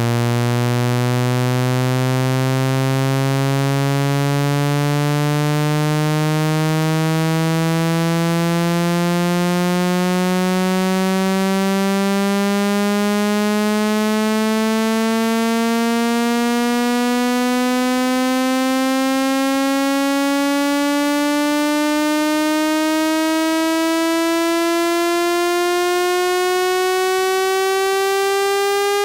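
Synthesized buzzy test tone, rich in overtones, rising gradually in pitch at a steady level: a speaker-cleaning frequency sweep played to shake trapped water out of a phone speaker.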